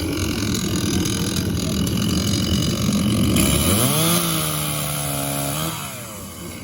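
Chainsaw cutting as the trunk of a freshly cut Christmas tree is trimmed. The engine runs rough under load at first. About four seconds in it rises to a steady high whine, then drops off near the end.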